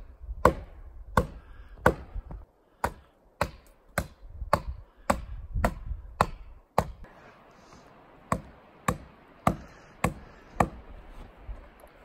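Repeated sharp blows struck at the cut of a tree, about one every 0.6 seconds, with a pause of about a second and a half past the middle. The tree is pinching a chainsaw in its cut, and the blows are an effort to free it.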